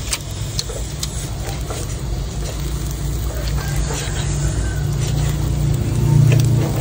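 Knife slicing grilled beef on a wooden chopping board, with a few sharp taps of the blade on the wood, over a steady low rumble that grows louder near the end.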